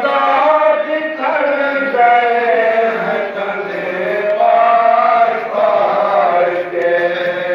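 Men of a Shia anjuman chanting a noha (mourning lament) together, in long held notes that slide up and down in pitch.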